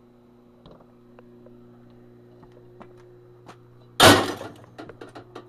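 Faint handling clicks, then about four seconds in a loud metallic crash as the dismantled air compressor's parts are dropped into a metal scrap bin, followed by a few smaller clatters. A steady low hum runs underneath.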